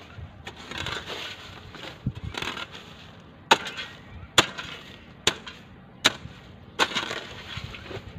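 Long-handled digging hoe dragging and scraping through a heap of dry twigs, dirt and rubbish, with a crackle of brush. From about three seconds in come five sharp strikes, a little under a second apart.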